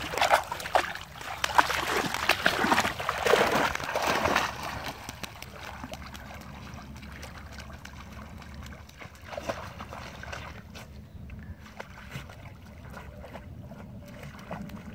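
A puppy splashing through reeds and shallow water for about the first four seconds, then much quieter as it swims out into open water.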